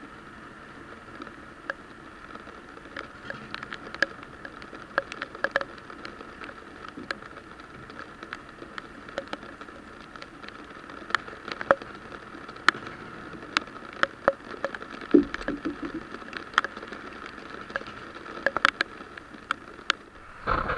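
Steady typhoon rain hissing down, with single drops striking the boat's deck close to the microphone as sharp, irregular ticks.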